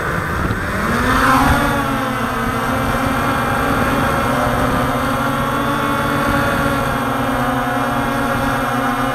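Quadcopter drone's motors and propellers whining as it lifts off, the pitch rising about a second in and then holding steady as it hovers and climbs.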